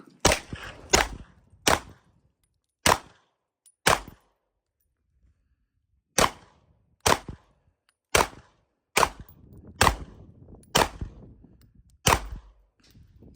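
Glock 19X 9mm pistol firing twelve shots: five at a steady pace, a short pause, then seven more at about one a second, each crack with a brief echo.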